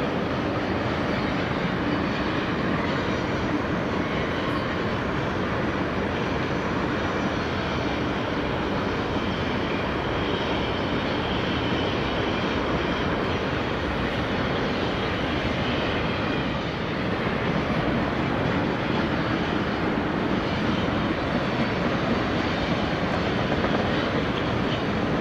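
Freight train rolling past: a steady roar of wheels on rail, with a brief dip in level about two-thirds of the way through.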